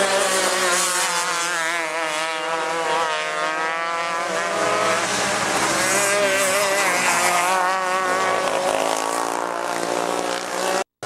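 Several 125cc outlaw kart two-stroke engines racing. Their pitch rises and falls as they rev out on the straights and back off for the turns. The sound cuts out abruptly for a moment just before the end.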